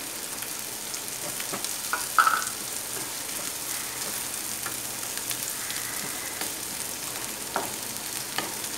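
Chopped onion and garlic frying in oil in a nonstick pan with a steady sizzle. A wooden spatula stirs them, scraping and tapping the pan, with a sharp knock about two seconds in.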